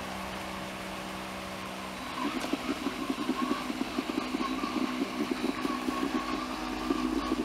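Electric drive motors of a homemade robotic lawnmower running: a steady hum for about two seconds, then a rougher, rapidly pulsing whir as it drives over the grass.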